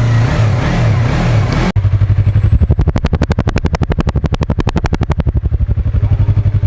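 Stock Yamaha R3's parallel-twin engine through its stock exhaust, revving briefly. After a sudden cut about two seconds in, it idles with a steady, even exhaust pulse.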